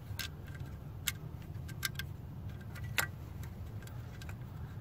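Several small, sharp plastic clicks and taps as fingers seat the rubber boot and red plastic cover on the alternator's positive terminal. The loudest click comes about three seconds in, over a low steady rumble.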